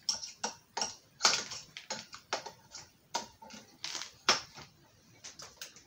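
Small plastic parts of a G.I. Joe Dragonfly helicopter toy clicking and tapping against each other as they are handled and pressed into place: about a dozen irregular sharp clicks.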